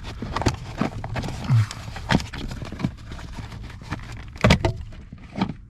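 Scattered clicks and knocks of hands working among the relays in a car's fuse and relay box, with a louder cluster of knocks about four and a half seconds in.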